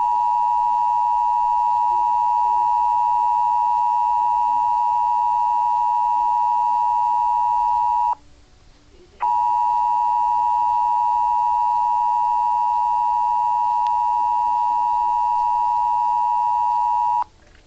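Emergency Alert System attention signal: the steady two-tone alarm (853 and 960 Hz sounded together) that precedes an EAS message, here sounding in two long stretches of about eight seconds each, broken by a silence of about a second and stopping shortly before the end.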